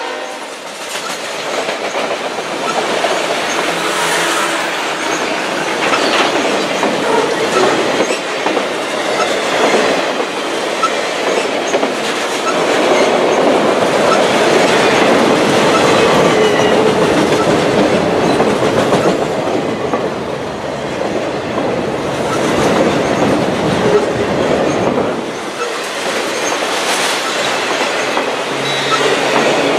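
Freight train of loaded auto rack cars rolling past close by, steel wheels clattering steadily over the rail joints.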